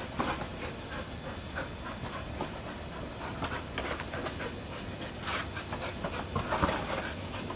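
Entlebucher mountain dog panting hard in quick breaths while nosing a basketball along concrete, the ball scuffing and bumping on the ground.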